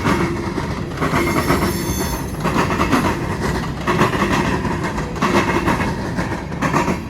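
Freight cars of a Norfolk Southern grain train rolling past, their wheels clacking over the rail joints in a repeating rhythm.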